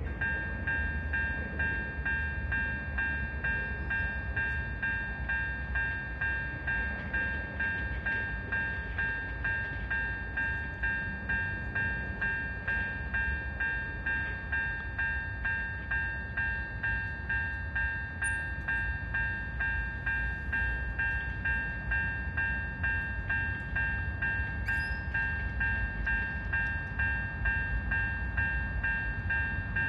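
Japanese railway level-crossing electronic warning bell ringing in a steady repeating ding, about two strikes a second.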